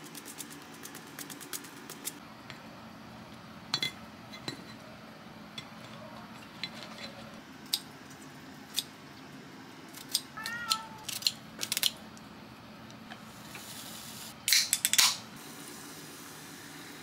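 Tableware clinking and tapping: chopsticks and dishes knocking on ceramic plates as food is served, with a louder quick run of clinks about three-quarters of the way through.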